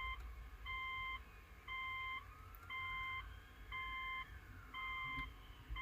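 Electronic beeper sounding a steady repeating beep, about one a second, each beep about half a second long.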